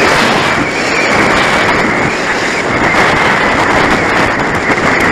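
Strong wind buffeting the microphone: a loud, steady rushing noise with no distinct tone.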